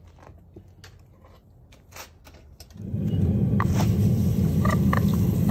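A hot copper ingot pressed onto a block of ice, boiling and sizzling loudly from about three seconds in, after a quiet start with a few faint clicks.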